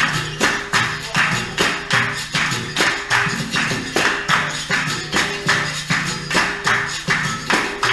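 Capoeira roda music: percussion with pandeiro jingles and drum beats in a steady rhythm of about two to three strong beats a second, over held pitched notes.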